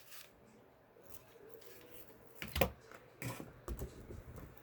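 Handling noise while unpacking shop-vac accessories: a few light clicks and knocks of the parts and packaging being moved, the loudest about two and a half seconds in.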